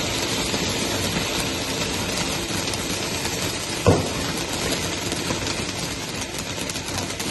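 Peacock-type firework fountain spraying sparks with a steady rushing hiss and scattered crackles. One short thump about four seconds in.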